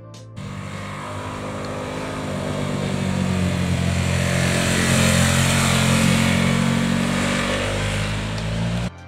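Harley-Davidson Pan America 1250's Revolution Max V-twin engine running as the bike rides through a bend. It cuts in suddenly about half a second in, grows louder as the bike comes closer, eases a little as it moves away, and cuts off abruptly near the end.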